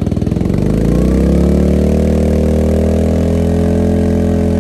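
Ryobi RYI2322E inverter generator engine speeding up as an 1800-watt load comes on. It rises in pitch and loudness over the first second or so, then holds a steady, higher note under full load.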